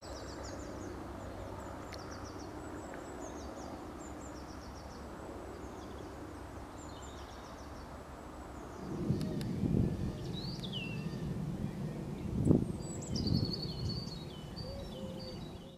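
Small birds singing, with repeated high chirps and a short falling whistle, over a low steady outdoor rumble. From about nine seconds in, low buffeting gusts of wind hit the microphone, the strongest about twelve and a half seconds in.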